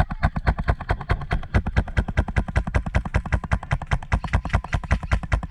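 Airsoft rifle firing full-auto in a long continuous stream, about ten sharp cracks a second.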